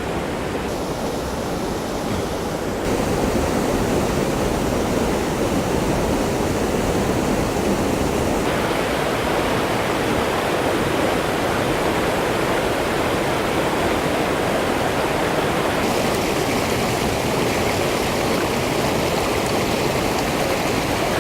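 Waterfall: a steady rush of falling water that steps up in loudness about three seconds in and shifts slightly in tone twice later on.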